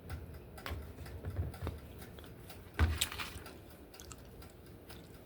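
Scattered light clicks and soft knocks of items being handled in a kitchen, with one louder knock about three seconds in.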